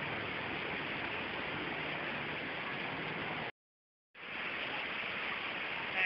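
Heavy rain pouring down in a dense, steady hiss. The sound drops out completely for about half a second a little after halfway, then comes back at the same level.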